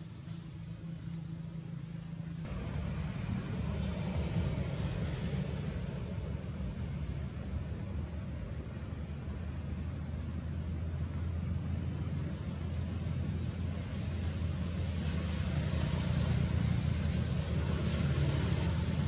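Steady low engine drone, as of a motor vehicle running, with a short high chirp repeating about once a second over it.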